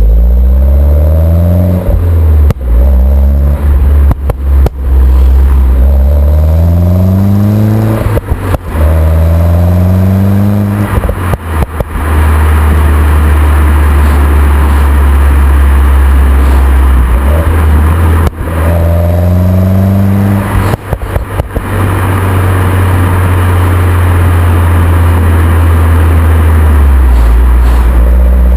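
A Mini Cooper S's 1.6-litre turbocharged four-cylinder engine, through its stock exhaust, accelerating hard through the gears with its pitch rising again and again. At each gear change the exhaust gives short bursts of popping and crackling as the throttle lifts. Between the pulls are steady stretches at constant engine speed.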